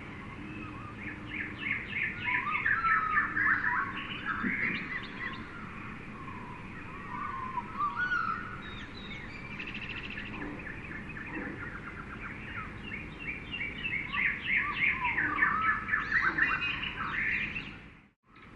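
Jungle ambience of many birds chirping and trilling over a steady background hiss, busiest in two stretches, with the sound cutting out for a moment near the end.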